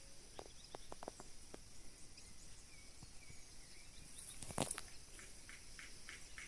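Faint rural outdoor ambience: a steady high-pitched insect hiss, with scattered light clicks and one louder knock about four and a half seconds in. Near the end comes a run of short ticks, about four a second.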